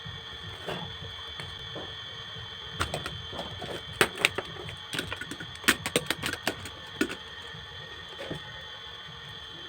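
A quick run of sharp clicks and taps, most of them in the middle few seconds, from small parts of a handmade excavator model being handled and worked, over a faint steady high whine.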